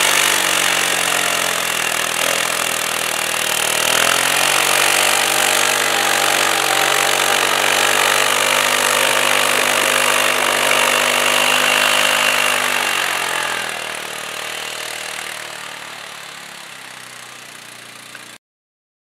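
ATV engine running under load as the quad climbs a snowy slope, its pitch rising and falling with the throttle. The sound fades as the machine pulls away, from about 13 seconds in, then cuts off suddenly near the end.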